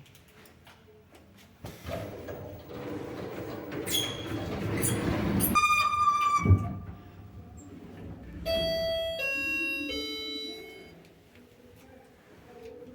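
ShchLZ elevator doors sliding with a rising scrape and a high squeal, then a sharp bang about six and a half seconds in. A three-note electronic chime sounds about two seconds later.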